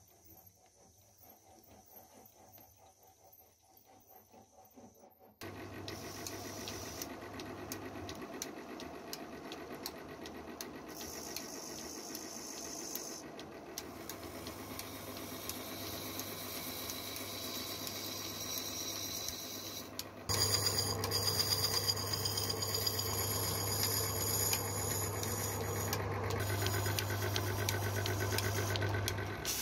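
A motor-driven workshop machine running with a steady low hum and rattle. It starts suddenly about five seconds in and gets louder about twenty seconds in. Before that there is only faint ticking and a high steady tone.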